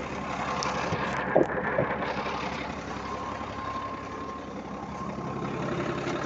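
Dump truck's diesel engine idling steadily, with two short knocks about one and a half seconds in.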